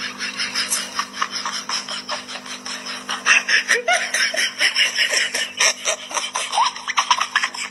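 Kitten chewing and gnawing on a plastic drinking straw: a fast, irregular stream of crackling clicks and rasps.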